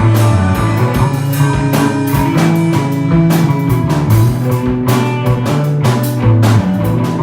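A rock band playing: electric guitar, bass guitar and drum kit, with steady drum hits under sustained guitar and bass notes.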